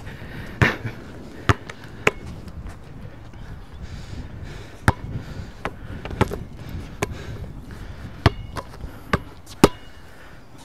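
Basketball bouncing on a hard outdoor court: a string of sharp, irregular dribbles, roughly one or two a second, over a low steady rumble of wind on the microphone.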